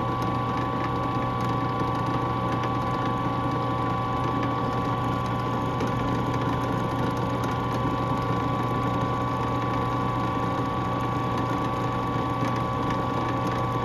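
Drill press running steadily, spinning a clock wheel's pivot held in a pin vise while a wooden stick is pressed against the pivot to polish it. The motor gives an even hum with a few constant tones.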